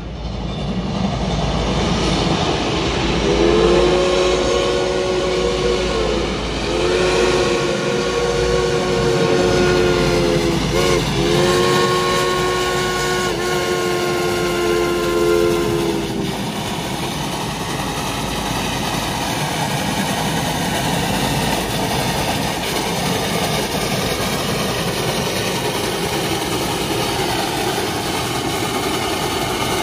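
Reading & Northern 425's chime steam whistle blowing the grade-crossing signal, long, long, short, long: a low three-note chord that sags in pitch at each break. A steady rushing noise of the moving train runs underneath and carries on after the whistle stops.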